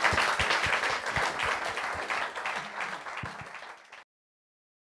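Audience applauding, dying away over the last couple of seconds, then cut off suddenly about four seconds in.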